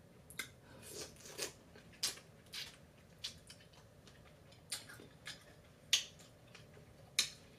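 A person eating food by hand, with about a dozen short, wet smacks and clicks of chewing and mouth sounds spaced irregularly.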